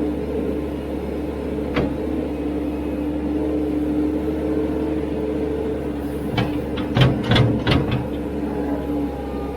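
Cat 226B skid steer's diesel engine running steadily, with a single sharp knock about two seconds in and a quick run of metal clanks about six to eight seconds in.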